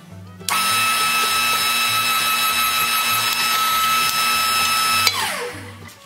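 Electric motor of a power press switching on and running with a steady high whine while a flat iron strap is bent in the press. About five seconds in it is switched off and winds down with a falling whine. Background music with a steady beat underneath.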